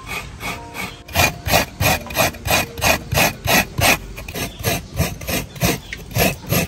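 Coconut half scraped back and forth over the serrated blade of a wooden coconut grater, shredding the fresh white meat. The rasping strokes are steady at about three a second and grow louder about a second in.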